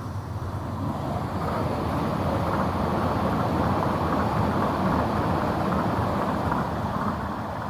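A passing vehicle: a steady rushing noise that builds over the first few seconds and fades near the end.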